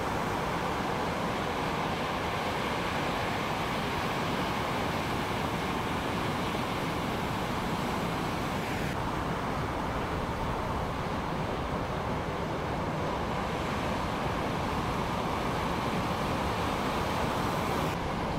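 Steady wash of breaking ocean surf, with wind noise on the microphone. The hiss drops abruptly about halfway through and again near the end.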